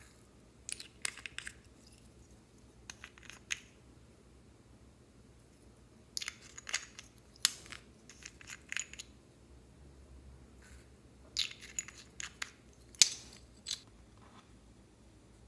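Slime being squeezed and pressed by hand, giving short bursts of crackly, popping clicks, about seven of them with pauses in between.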